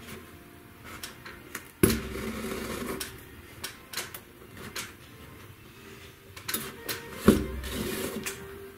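Upholstery work on an antique Voltaire chair's seat springs: scattered sharp clicks and taps, with two louder knocks about two seconds in and near seven seconds, each followed by a short ringing.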